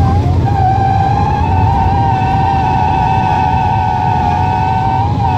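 Airliner jet engines at takeoff power, heard from inside the cabin during the takeoff run and lift-off: a steady high whine over a heavy low rumble.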